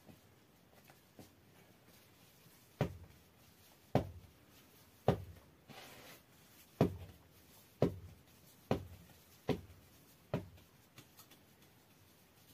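Bread dough being slapped and pressed by hand onto a floured board: a series of about eight soft, heavy thuds roughly a second apart, with light rubbing between them.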